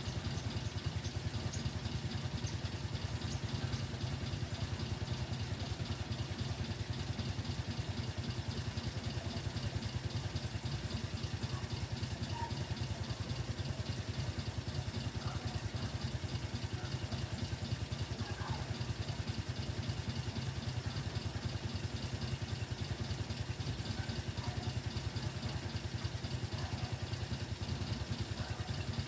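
A small engine running steadily at idle, with a fast, even pulse and no change in speed.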